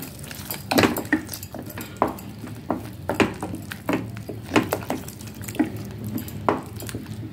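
A spatula stirring a thick masala paste in a stainless steel pot, knocking and scraping against the pot's sides and bottom in irregular strokes about once or twice a second.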